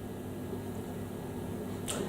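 Steady low mains hum from a 1961 Fenton Weill Cornet valve amp left switched on with no signal, with a short click just before the end.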